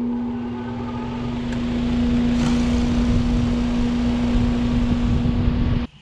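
Central air-conditioning condenser unit running during its soft-started start-up: the condenser fan pushing air with a steady electric hum underneath. The rush of air grows louder about two seconds in, and the sound cuts off suddenly just before the end.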